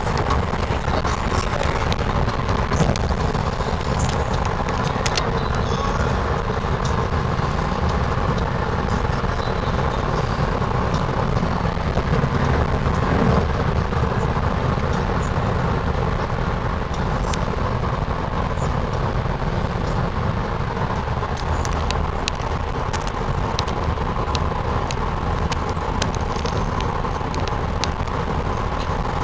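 Steady road noise inside a moving car: a constant rumble of tyres and engine that covers a passenger's snoring.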